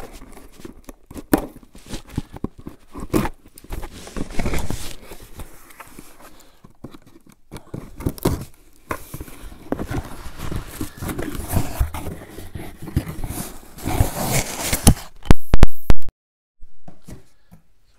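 A taped cardboard parcel being cut and opened with a pocket knife: irregular scraping, tape slitting and cardboard handling noises with scattered clicks, growing loudest for a moment near the end.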